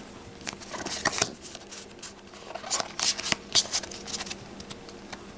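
A small stack of Pokémon trading cards being slid and flicked through by hand, the cards rubbing and snapping against each other in irregular short clicks and rustles.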